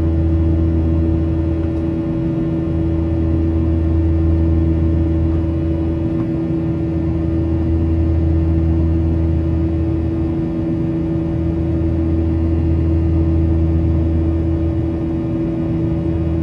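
CFM56-7B26 turbofan engines of a Boeing 737-900ER at climb power, heard inside the cabin over the wing. They make a steady drone with several steady tones above a low hum, and the hum dips slightly every few seconds.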